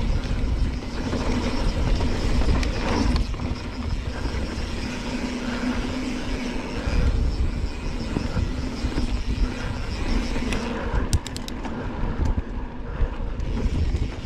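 Mountain bike riding fast down a dirt singletrack: a steady rumble of knobbly tyres, frame and wind on the microphone, with a short run of sharp ticks about eleven seconds in.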